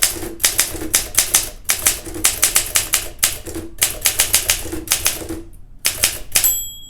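Olympia SM7 manual typewriter being typed on at a steady pace: runs of sharp key and typebar strikes, several a second, with short pauses between words. Near the end a single ring sounds, the end-of-line bell.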